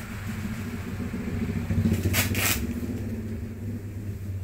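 A motor vehicle's engine running nearby, a steady low hum that swells and fades, loudest about two seconds in. Two quick scratchy rustles come near the middle, from the taped paper wrapping being handled.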